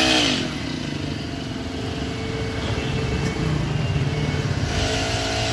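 A Honda GX35 four-stroke engine on a backpack sprayer slows from high speed to a low steady run just after the start. It speeds up again near the end. A spray hiss is heard while the engine is at speed.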